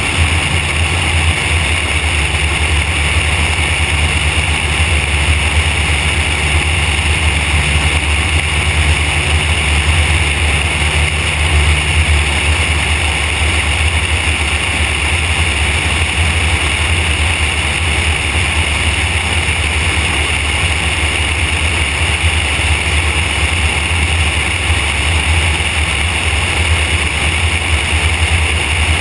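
Van's RV-4 light aircraft in flight: its piston engine and propeller droning steadily, with airflow rushing over the belly-mounted camera.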